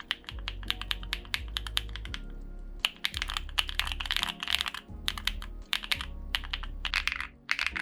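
Fast typing on a custom mechanical keyboard: a dense run of key clacks with short pauses, over background music with a low bass line.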